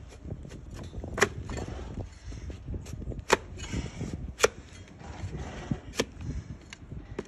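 Donkey hoof being pared with a large flat trimming blade pressed down onto a wooden bench: sharp cracks as slices of hard hoof horn split off, four loud ones and fainter crunches between.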